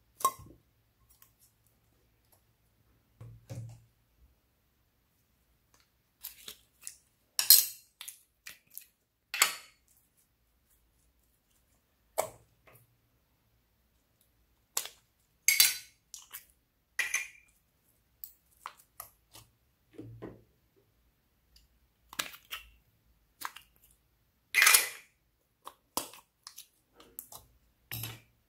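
Small plastic slime pots being opened and handled and slime pulled out by hand: scattered short clicks, snaps and squelches with quiet gaps between.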